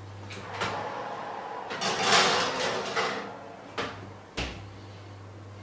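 Oven door opened with clicks, a metal baking tray slid onto the oven rack with a scrape of about a second, then the oven door shut with a thump. A steady low hum stops while the door is open and comes back as it shuts.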